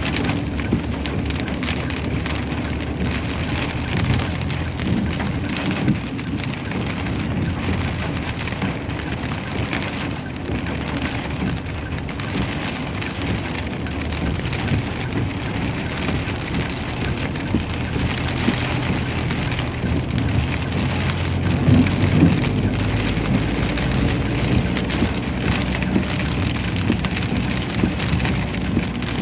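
Heavy hail and rain pelting down, a dense, continuous clatter of countless small impacts that swells a little past the middle.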